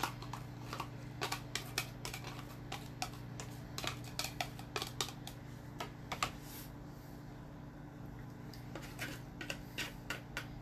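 A silicone spatula scraping chopped cucumber mixture out of a plastic food-chopper bowl and knocking against the bowls. It makes irregular light clicks and scrapes, several a second, with short gaps.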